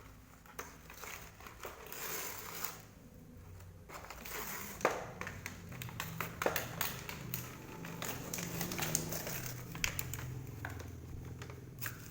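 Plastic packaging crinkling and rustling in irregular handling sounds, with small clicks and taps, as a toy set is unpacked by hand.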